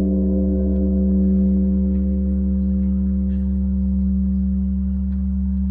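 Large bronze Korean Buddhist temple bell ringing on after a strike, with no new strike heard. A deep, steady hum holds under it, while the higher overtones pulse and slowly fade away.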